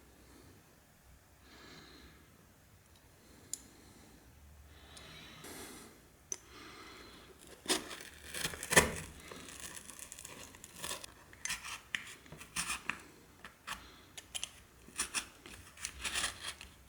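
Irregular tearing and scraping with sharp clicks, from about eight seconds in; soft faint rustles before that.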